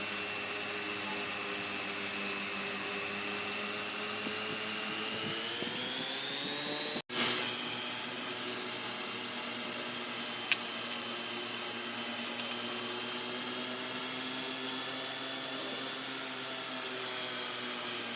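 A motor running steadily with a high whine; its pitch rises briefly about six seconds in, it drops out abruptly about seven seconds in, and a single sharp click comes about three seconds later.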